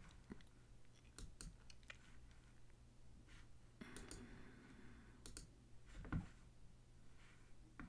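Faint, scattered clicks at a computer, the loudest a dull knock about six seconds in, over a low steady hum.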